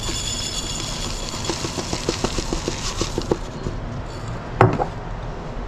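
Dry oats poured from a paper bowl into a glass mason jar: a soft rustling hiss with a run of small ticks as the flakes fall in. A single sharp knock comes near the end.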